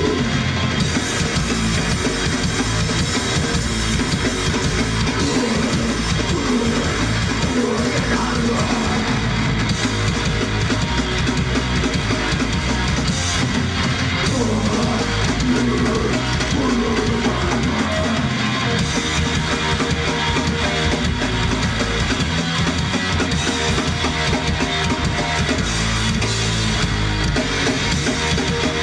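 Loud live rock band playing: drum kit and electric guitar over bass, heavy and continuous.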